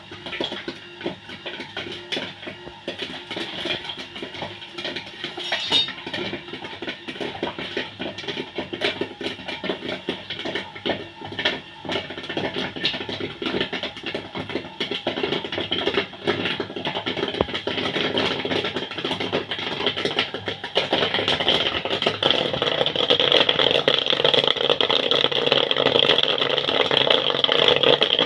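A small 12-volt popcorn machine running, its dynamo-driven stirrer turning, with many quick clicks and rattles from the kernels. The sound grows louder and denser about three quarters of the way through.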